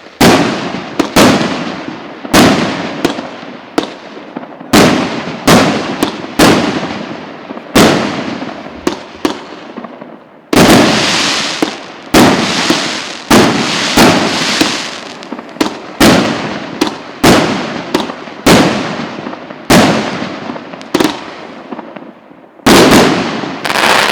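РС9500 'Borodino' consumer fireworks battery (cake) firing its shots in sequence: sharp bangs about one a second, each trailing off, with a few longer, hissing bursts about eleven seconds in and near the end.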